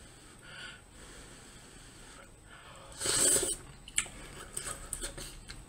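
A person eating hot vegetable soup from a spoon: one short, airy sound at the mouth about three seconds in, with a faint click near four seconds.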